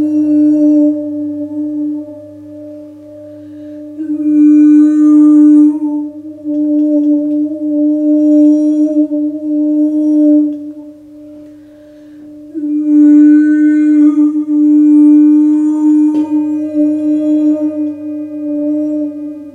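Large hand-hammered singing bowl cast from seven metals, ringing a deep steady tone with a strong overtone. It is held up close to the player's mouth, and its ringing swells and fades in slow waves, loudest twice.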